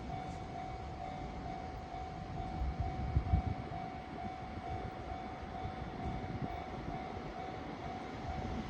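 Japanese railway level crossing warning bell ringing with its steady repeating electronic ding, sounding the approach of a train, over a low rumble that swells briefly about three seconds in.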